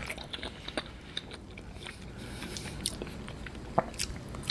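A person biting into and chewing a block of agar-agar jelly, with soft wet mouth sounds and scattered small clicks.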